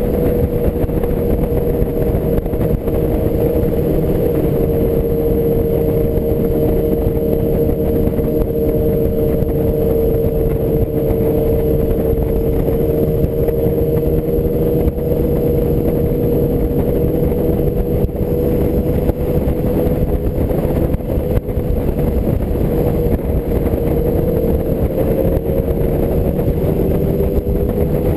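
A 1984 BMW R100RS's air-cooled flat-twin boxer engine cruises at freeway speed under heavy wind and road rush. The engine note holds steady, dips slightly, then picks up a little near the end.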